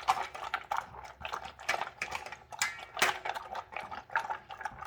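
A dog gulping kibble from a bowl with water in it, fast and without chewing: irregular clacks of food against the bowl mixed with wet slurping.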